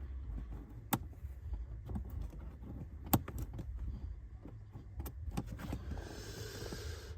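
Scattered sharp clicks and taps of hands fitting a small plastic retaining clip onto a car's cabin filter housing, over a low steady rumble, with a soft rustle near the end.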